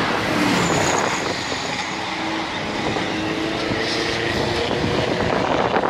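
Several Chevrolet Corvette V8 engines running as the cars creep along in a queue: a steady mixed engine noise with a few faint held engine tones.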